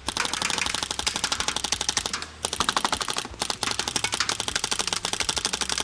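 Paintball guns firing in rapid strings, well over ten shots a second, at a target, with short breaks about two seconds in and again a second later.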